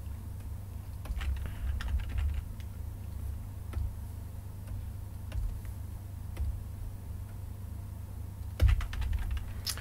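Scattered clicks and taps of a computer keyboard and mouse, with a quicker run of clicks near the end, over a low steady hum.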